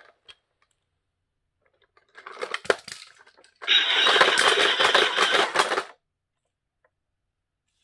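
Plastic Chuck the Dump Truck toy being pushed and handled on a foam play mat: a scatter of clicks and rattles with one sharp click, then about two seconds of louder, dense noise.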